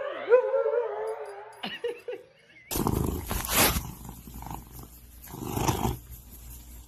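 A husky 'talking' into a handheld microphone: a drawn-out yowling call that slides up and down in pitch for about two seconds. After a cut, a tabby cat rubs right against the phone, giving loud rustling of fur over the microphone along with purring.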